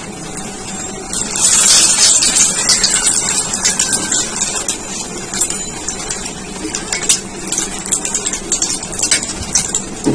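Hot oil sizzling in a black iron karahi as a battered eggplant fritter (beguni) deep-fries, louder for a couple of seconds about a second in. Frequent light clicks and scrapes of a metal spatula against the pan.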